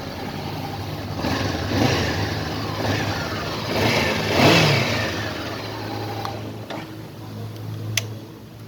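Honda CBR500R's parallel-twin engine idling and being revved, with throttle blips that peak about halfway through before settling back to idle. A single sharp click near the end.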